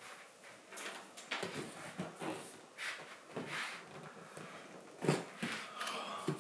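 Cardboard iMac box being handled: scattered rubs and scrapes with a few soft knocks, the firmest thump about five seconds in.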